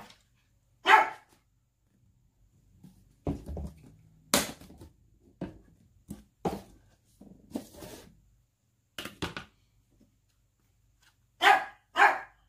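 A dog barks: once about a second in, then twice in quick succession near the end. Between the barks come light clicks and knocks as a metal spoon and sauce bottles are handled over a plastic bowl.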